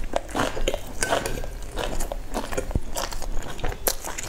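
A person chewing crunchy food close to the microphone: a run of irregular crisp crunches and mouth sounds.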